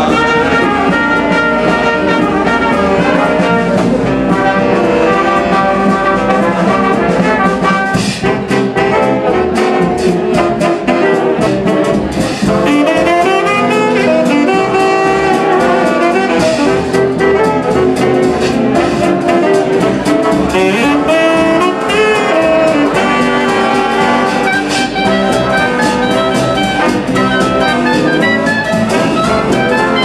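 A 1930s-style jazz dance band playing an instrumental passage: saxophones, trumpets and trombone over an upright bass.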